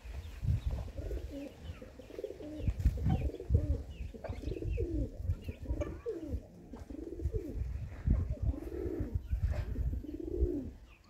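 Pigeons cooing: a string of repeated rise-and-fall coos, about one a second, over an uneven low rumble.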